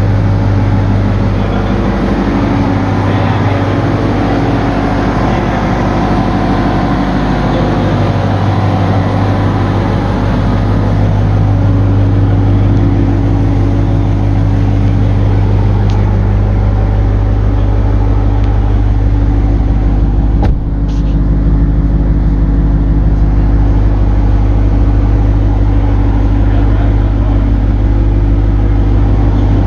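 Supercharged 6.2-litre Hemi V8 of a Dodge Durango SRT Hellcat idling steadily with a deep, even low note, its mid mufflers deleted.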